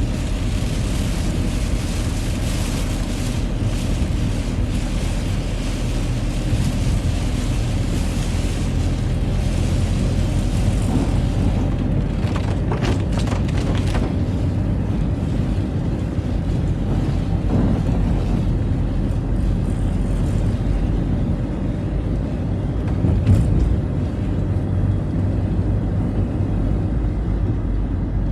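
Citroën Xsara driving on a wet road in the rain: a steady low engine and road rumble with a hiss of tyres on wet tarmac that fades after about ten seconds, and a few short knocks and a bump partway through.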